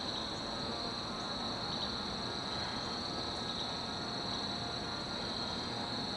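Insects chirring in one steady, unbroken high-pitched drone, over a low background hum of outdoor noise.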